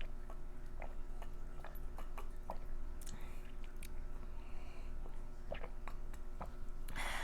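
Close-up mouth sounds of someone chewing food, with irregular small wet clicks and smacks. A brief louder hiss, like a breath, comes near the end.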